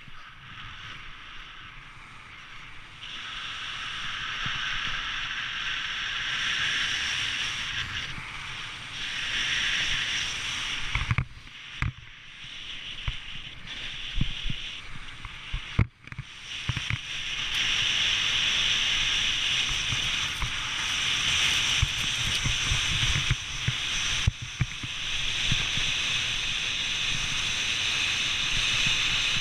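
Snowboard sliding and carving on groomed snow: a steady scraping hiss from the board that swells and fades with the turns, over a low wind rumble on the microphone. A few knocks come about halfway through.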